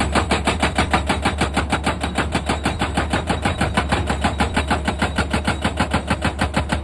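Excavator-mounted hydraulic rock breaker hammering, with rapid, even blows at about eight a second over the steady drone of the excavator's engine.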